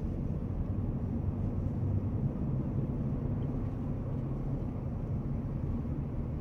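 Low, steady rumble of a car on the move heard from inside the cabin: engine and road noise.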